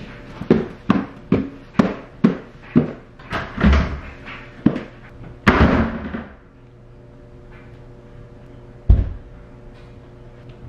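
Footsteps climbing wooden stairs, a bit over two steps a second for about five seconds. About five and a half seconds in comes a louder thud with a brief rustle, and near nine seconds a single thump.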